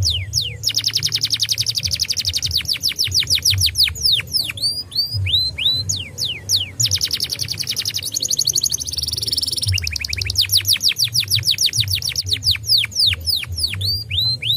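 Domestic canary singing a fast, continuous song. Long rolling trills of rapid repeated high notes alternate with slower runs of separate sweeping notes, with a buzzier high phrase about eight seconds in.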